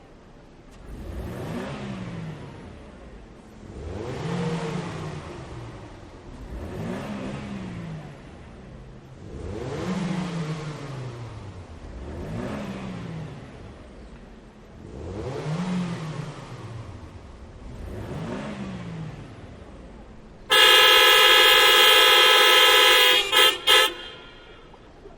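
Car engines revved up and let drop seven times, the pitch rising and falling every two to three seconds, then a loud steady car horn blast about twenty seconds in that breaks off in two short toots.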